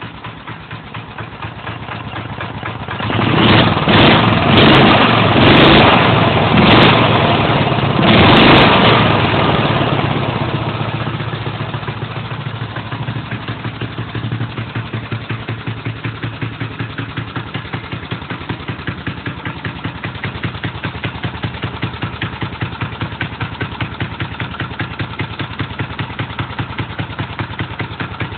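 5 HP Briggs & Stratton single-cylinder engine, straight-piped with a custom intake, idling with an even firing beat, then revved hard in about five quick blips a few seconds in, and settling back to a steady idle.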